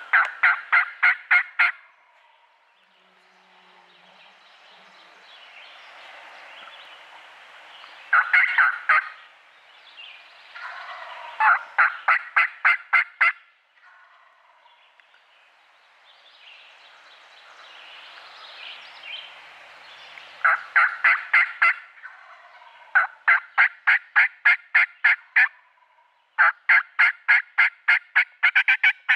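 Wild turkey calling: six runs of sharp, evenly spaced yelps, several a second, the runs near the end longer and rising slightly in pitch, with softer rough calling between them.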